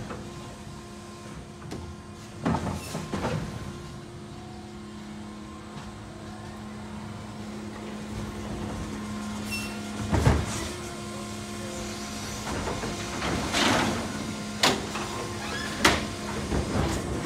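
Electric Mack LR garbage truck with a New Way Sidewinder automated side-loader body: a steady electric hum with several loud clanks and bangs, about three seconds in, about ten seconds in, and a run of them in the last four seconds, typical of the arm lifting and emptying a cart into the hopper.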